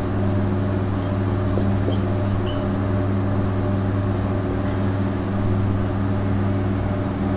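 Steady electrical hum, a buzz of evenly spaced low tones that holds level throughout, with a few faint marker strokes on a whiteboard.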